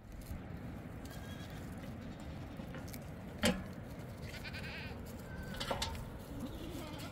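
Livestock bleating: one wavering, fairly high call about four seconds in, with a few fainter calls around it, over steady background noise. A sharp knock about three and a half seconds in is the loudest sound, and a smaller one follows about two seconds later.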